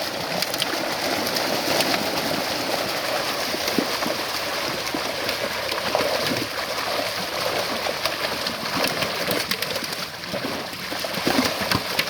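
Pond water splashing and sloshing steadily as a long fishing net is worked through it.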